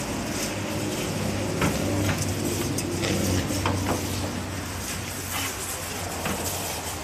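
Coin-operated express washer running: a steady low motor hum under a constant hiss, with a few short knocks in the first half.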